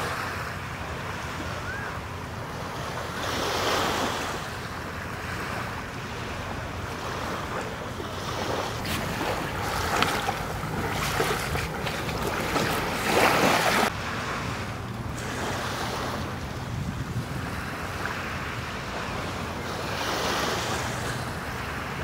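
Small waves washing onto a sandy beach, rising and falling in slow swells, with wind gusting on the microphone and a few short clicks.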